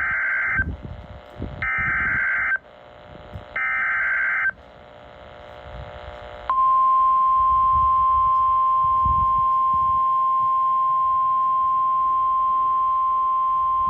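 Emergency Alert System alert on NOAA Weather Radio, heard through a weather radio receiver. It opens with three short warbling data-tone bursts of the SAME header, each about a second long with a second's gap between them. About six and a half seconds in, the steady single-pitch warning alarm tone starts and holds, announcing a severe thunderstorm warning.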